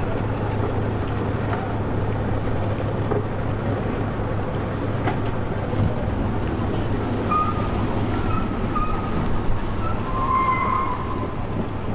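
Steady low engine hum with wind noise on the microphone.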